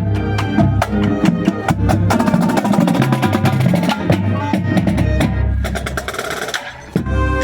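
Marching band playing, with its drumline striking rapid snare and bass drum patterns under the band. Near the end it drops quieter for a moment, then the full band comes back in suddenly with a loud held chord.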